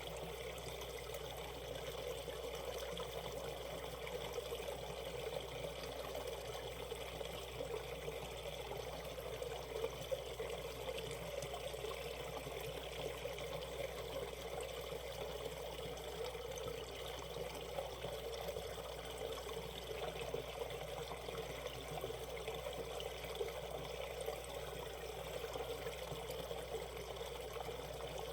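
Valley stream running over shallow rapids: a steady rush of water.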